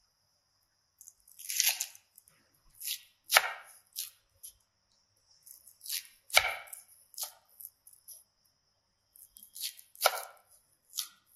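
Small knife slicing green onions (scallions) into rings on a bamboo cutting board: crisp cuts, each ending in a knock on the wood, coming in uneven groups with short pauses between.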